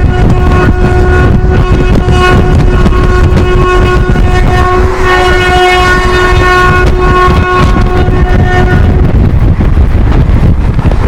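WAP-4 electric locomotive's twin-tone horn sounding one long blast, with a second, higher note joining in the middle for about two seconds. The horn cuts off near the end, leaving the heavy rumble of the train running at speed.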